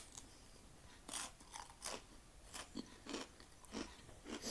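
Crispbread being chewed: a run of irregular dry crunches, roughly two a second.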